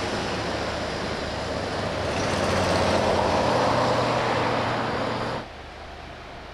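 Motor vehicle engine running nearby: a loud rush with a low steady hum underneath, swelling to its loudest in the middle and cutting off suddenly about five and a half seconds in, leaving a faint hiss.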